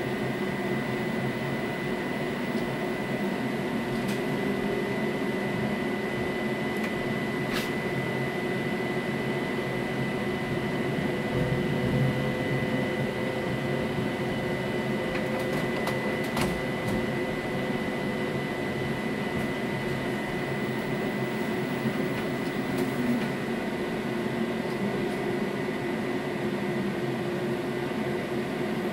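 Steady hum inside a moving tram car, with a thin steady high whine from its electrical equipment, as the tram runs slowly. A couple of faint clicks sound about a third and half way through.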